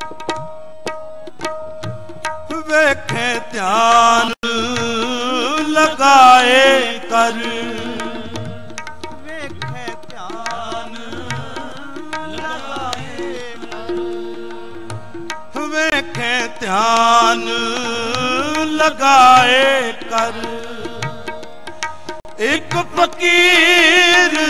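Sikh kirtan music: harmoniums holding steady notes while tablas play, with a voice singing long wavering wordless phrases three times over them.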